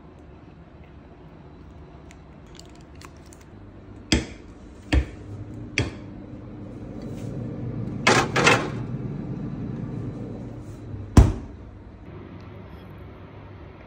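Dishware and a refrigerator door being handled: a few sharp knocks, a double clatter, and a final loud thump like a fridge door shutting, over a low steady hum.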